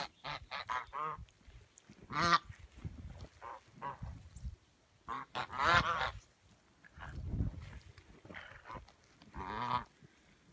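Domestic geese honking: a quick run of short honks at the start, then single louder honks every three to four seconds, with soft low thumps in between.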